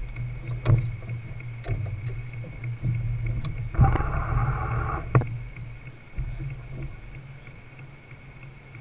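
Small aluminium fishing boat on a lake: water lapping against the hull, a steady low rumble and scattered knocks. A brief pitched sound with several tones comes in about four seconds in and lasts just over a second.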